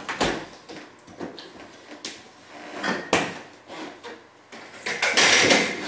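Household knocks and clatter: a refrigerator door shutting and footsteps across the kitchen. Near the end comes a loud rattling clatter as a one-way pet gate is forced the way it does not open.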